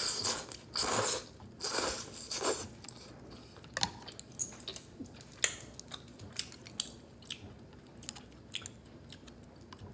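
A person eating udon noodles close to the microphone: four noisy mouthfuls in the first two and a half seconds, then chewing with scattered short wet mouth clicks.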